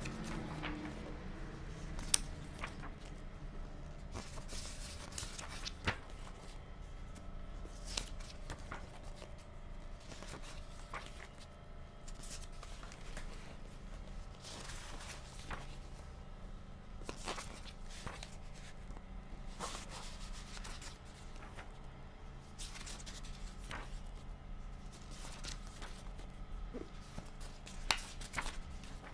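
Pages of a paperback book turned by hand, paper rustling and swishing at each turn, with a few sharp ticks of paper and fingers. A faint steady hum lies underneath.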